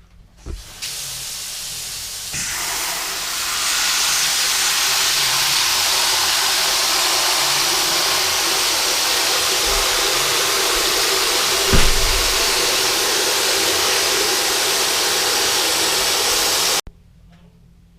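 Water jet from a hose or tap hissing steadily as it rinses dirt off a steel helmet, growing stronger over the first few seconds, with a brief low thump near the middle, then cut off suddenly.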